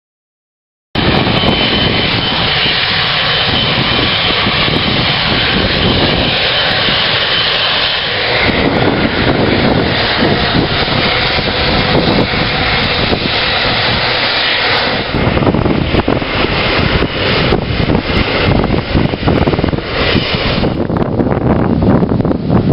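A Boeing 777's jet engines at takeoff power: a loud, steady rush with a high whine through the first several seconds. Later it is increasingly broken up by wind gusting on the microphone.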